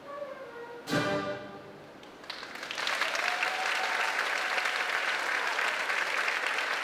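A school concert band's final chord, struck with a percussion hit about a second in and fading out. About two seconds in, audience applause starts and carries on steadily.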